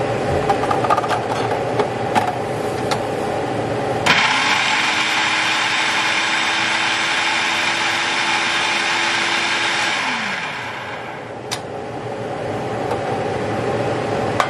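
Food processor motor switched on about four seconds in, running steadily for about six seconds as it purées a chunky soup mixture smooth, then winding down in pitch as it is switched off. Handling clicks come before it, and a sharp click follows it.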